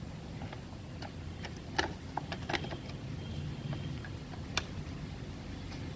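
A few light clicks and taps as a new air filter is handled and set into a scooter's air filter housing, the sharpest click about four and a half seconds in.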